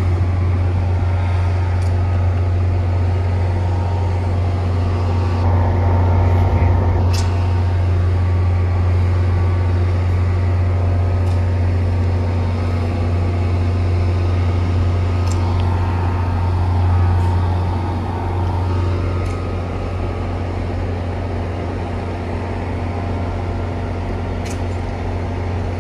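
NJ Transit Multilevel commuter train idling at the platform with a steady low hum, a few faint clicks over it, easing slightly after about eighteen seconds.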